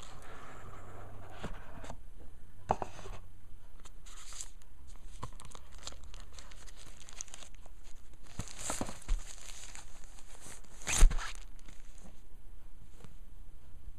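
A tablet's packaging being handled and unpacked by hand: scattered rustles of paper and card, with a few sharp knocks, the loudest about eleven seconds in.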